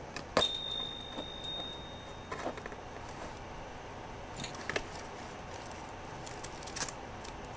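A small bell chimes once brightly about half a second in and rings on for about a second and a half, with a few lighter repeat strikes. Faint scattered clicks and scratches follow.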